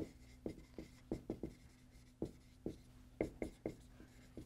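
Dry-erase marker writing on a whiteboard: a quick, irregular series of short strokes and taps as the letters are printed.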